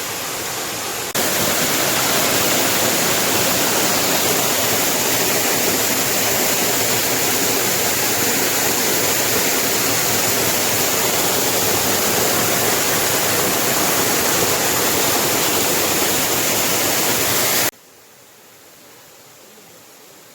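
Waterfall's steady rush of falling water, even and loud, stepping up in loudness about a second in and cutting abruptly to a faint hiss near the end.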